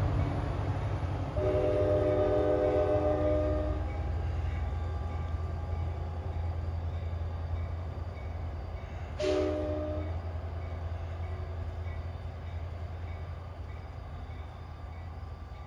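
A departing NJ Transit train sounds its horn: one long blast of a few seconds, then a short blast about nine seconds in. Under the horn the steady low drone of the PL42AC diesel locomotive fades as the train pulls away.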